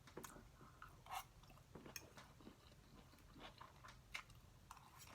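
Faint close-up chewing and crunching of food, with irregular short crunchy clicks.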